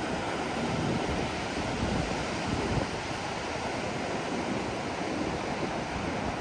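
Ocean surf breaking on a sandy beach: a steady rush of noise with some wind on the microphone.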